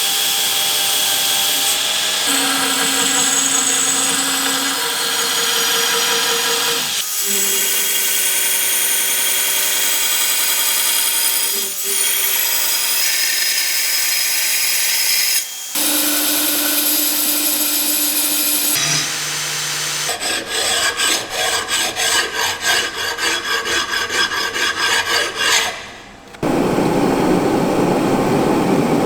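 Workshop tools working a steel blade blank in a string of edited segments: a steady motor whine with grinding noise, then a stretch of rhythmic strokes at about three a second, then a dense grinding noise near the end.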